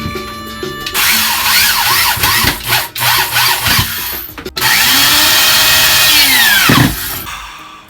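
Electric power tool working wood in two loud runs with a wavering motor whine. The motor winds down with a falling whine near the end.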